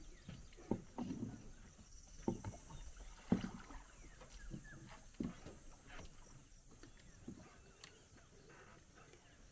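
Wooden paddle or pole working the water beside a small outrigger canoe: irregular splashes and hollow knocks of wood against the hull every second or two, the loudest a little past three seconds.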